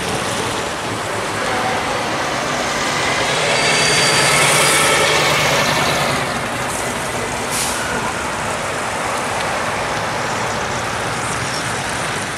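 Passing traffic: engines and tyre noise of classic cars and a heavy truck with a trailer rolling through a roundabout, loudest a few seconds in, with a short hiss about seven and a half seconds in.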